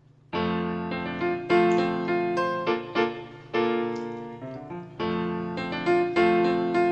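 Piano accompaniment playing an introduction, starting about a third of a second in. It plays a series of rich chords, each struck and then fading away.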